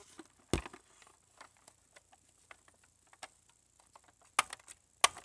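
Scattered clicks and knocks of a hard plastic electronic toy helicopter being handled and its buttons pressed: one louder knock about half a second in, faint ticks, and a quick run of clicks near the end.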